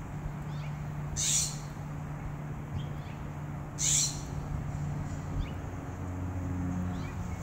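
California scrub jay splashing in a bird bath: two short bursts of splashing, about a second in and again about four seconds in.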